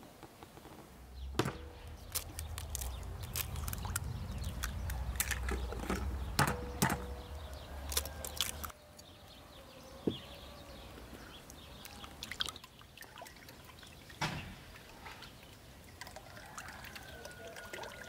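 Liquids pouring and splashing into a glass mixing bowl as bread dough ingredients go in, with sharp clinks now and then. A low rumble runs through the first half and cuts off suddenly. Near the end butter is poured in from a small pot.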